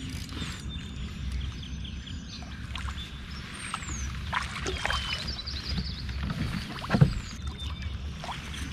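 Water splashing and sloshing against a kayak hull as a hooked smallmouth bass is brought alongside and scooped with a landing net, with small clicks and knocks and one sharp knock about seven seconds in.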